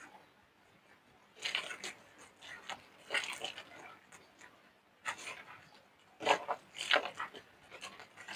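Dry soap being crushed, crumbling with crackling crunches in irregular bursts, the loudest in the second half.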